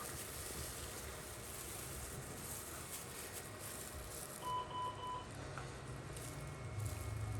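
Three short electronic beeps in quick succession, about four and a half seconds in, over a low steady background hum and hiss.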